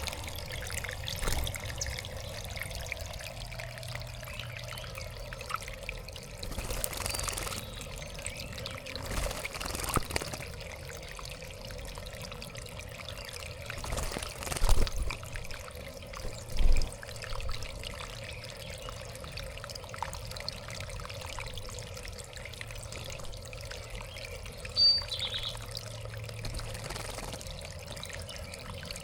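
Water trickling and pouring steadily in a backyard bird-bath fountain. A few brief low thumps come midway, and a short high bird call is heard near the end.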